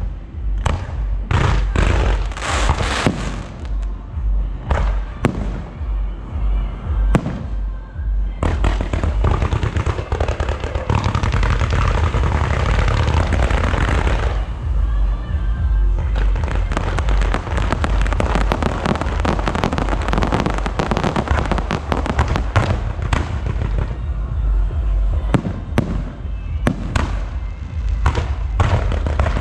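Fireworks show: repeated sharp bangs of bursting shells over a heavy low rumble. They build into long stretches of dense, continuous crackling and booming, about eight seconds in and again after a short lull in the middle.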